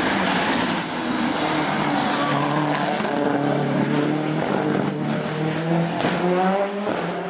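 Race car engine running hard during a hillclimb run. Its note rises near the end, breaks briefly and picks up again.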